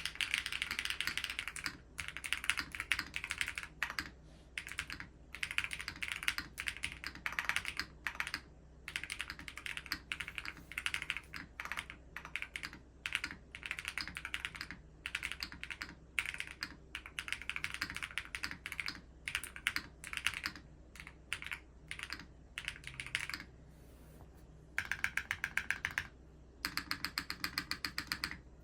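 Geonworks F1-8X V2 custom keyboard with stock Owlab TI hall-effect switches and an aluminium leaf-spring plate, no foam inside, typed on in bursts of rapid keystrokes with short pauses between them. Near the end the keys are struck in two quick, even runs.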